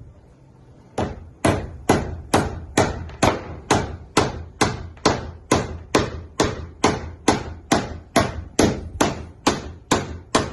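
A hammer striking in a steady, even rhythm, a little over two blows a second, starting about a second in. Each blow is sharp with a short ring after it, as steamed oak ribs are being fixed into a wooden boat hull.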